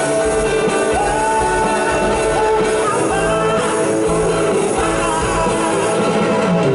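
A rock band playing live, with electric guitars, bass guitar and drum kit, and a singer's voice over it.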